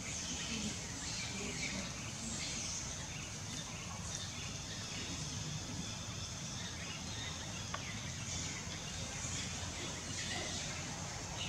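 Outdoor background ambience: a steady low rumble and a high hiss, with faint bird chirps scattered through it.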